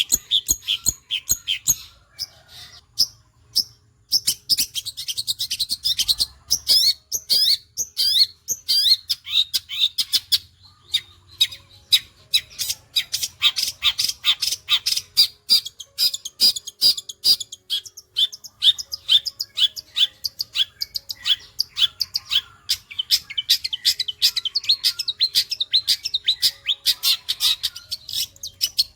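Long-tailed shrike singing a fast, rapid-fire stream of short, sharp chirping notes, many per second, in the sewing-machine-like delivery its keepers prize. The song thins out briefly a few seconds in, then runs on densely.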